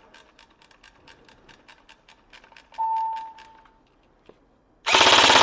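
HTA LVOA airsoft electric rifle opening up on full auto near the end: a loud, rapid run of shots, about twenty a second. Before it come faint rapid ticks and, about three seconds in, a short high beep.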